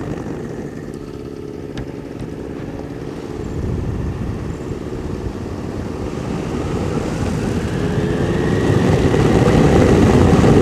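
Ultralight's two-stroke engine and propeller running at low power with wind noise during a spin. Over the last few seconds they grow louder and climb in pitch.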